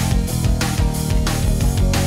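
Background rock music with guitars and a steady beat, about two beats a second.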